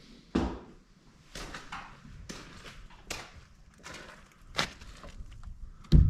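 Irregular knocks and footfalls on the wooden floor of a plywood shed, about half a dozen, with a heavier thump near the end.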